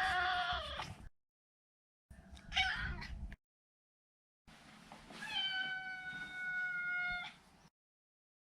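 Maine Coon cat meowing three times: a short meow that falls in pitch at its end, a second short meow about two seconds in, and a long meow held at a steady pitch from about five seconds in. The calls are separated by complete silence.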